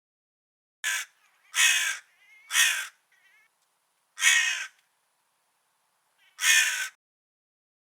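Crow cawing: five harsh caws at uneven gaps, the first one short, with a few faint softer calls between them.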